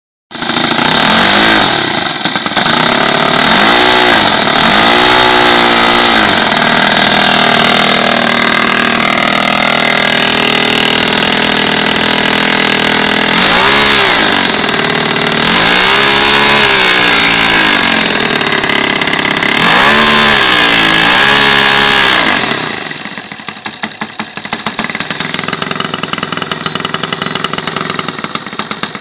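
YS 110 four-stroke glow engine of a radio-control Spitfire model, with its propeller, running through Keleo scale exhaust stacks. It runs loud, its pitch rising and falling over several throttle-ups and throttle-downs, then drops to a low, ticking idle for the last few seconds.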